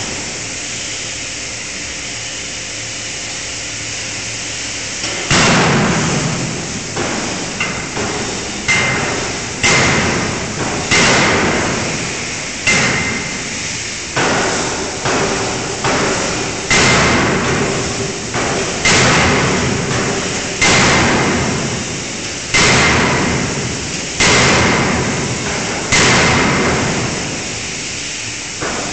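A 5-tonne fully hydraulic closed-die forging hammer striking a red-hot workpiece. After about five seconds of steady hiss comes a run of heavy blows, about one a second, each with a short metallic ring. The blows stop a few seconds before the end.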